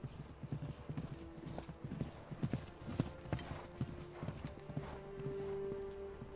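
Horses' hooves clip-clopping at a walk, many quick irregular hoof falls. Near the end a held note of film-score music comes in.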